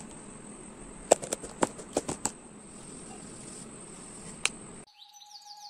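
Steady high insect trill over a hiss, broken by a handful of sharp clicks. About five seconds in it cuts off, and a soft held tone with quick falling chirps begins.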